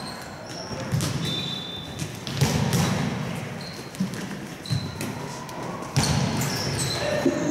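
Futsal balls being kicked and striking the keeper and the court floor in a goalkeeper drill: a series of sharp thuds, about six in all, roughly a second apart, echoing in a large sports hall.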